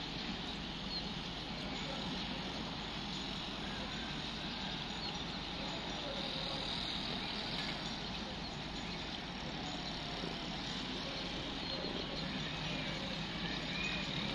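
Outdoor ambience: a steady low hum of distant engines with faint bird chirps over it.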